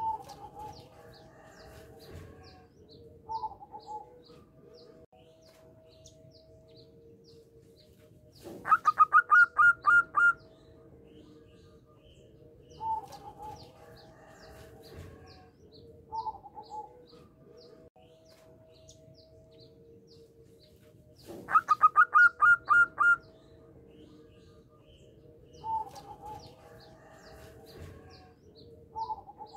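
Zebra dove (perkutut) cooing: two loud phrases of about a dozen rapid staccato notes each, about nine and twenty-two seconds in, with softer short coos every few seconds between. Faint high chirps of other birds run underneath.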